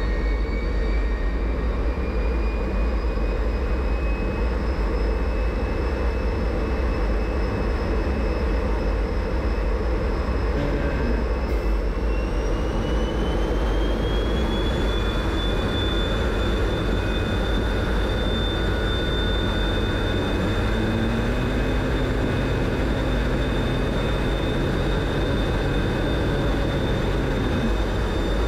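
MiG-17 jet's centrifugal-flow turbojet running loudly and steadily, its whine rising in pitch twice, near the start and again about halfway through, as the throttle is advanced at takeoff clearance.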